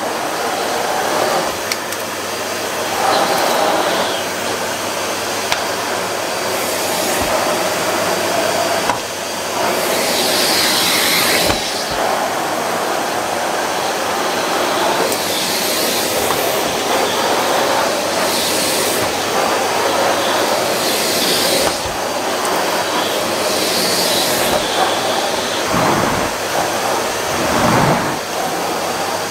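A Numatic Hetty and a Miele bagged cylinder vacuum cleaner running together with a loud, steady suction rush. The hiss swells and changes every few seconds as their floor heads are pushed over carpet.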